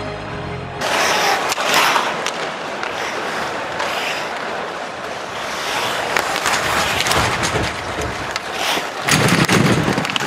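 On-ice hockey sound: skate blades scraping and carving the ice, with sticks and puck clacking over a steady arena crowd noise. About nine seconds in comes a louder, deeper thumping as players hit the boards.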